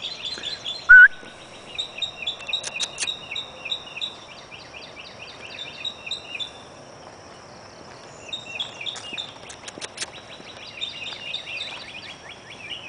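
Songbirds singing in rapid runs of short repeated chirps, over a steady thin high-pitched drone from insects. About a second in comes one brief, loud rising whistle, and a few sharp clicks follow later.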